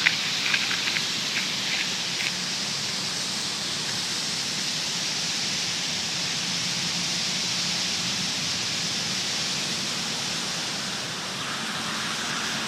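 Massed chirping of thousands of birds at a roost, blending into a steady hiss, with a few separate chirps standing out in the first couple of seconds.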